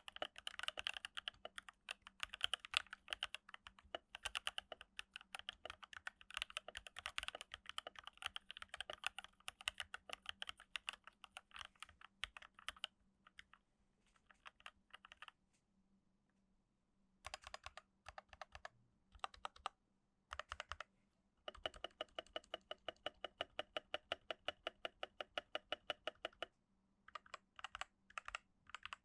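Typing on a Keychron K8 mechanical keyboard with FFF switches lubed with Krytox 205g0 and filmed, foam added inside the case. Dense typing at first, then shorter bursts with brief pauses, then a fast, even run of keystrokes, about eight a second, for several seconds before ordinary typing resumes.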